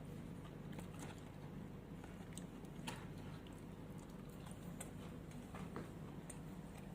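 Faint chewing with a few soft mouth clicks over a low steady hum.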